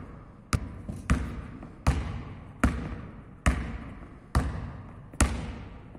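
A basketball dribbled on a sports-hall floor, about eight bounces at a slightly uneven pace of roughly one a second, each echoing in the hall.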